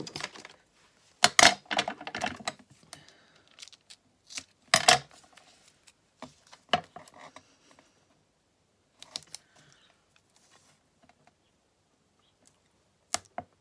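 Hand handling of double-sided tape and paper: the tape roll handled and the tape laid and pressed along a strip of printed paper on a cutting mat, giving several short rustling and clicking bursts with quiet between, the loudest about a second and a half in and about five seconds in.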